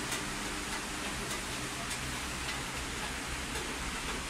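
Steady hiss of background noise with a low hum underneath and a few faint clicks.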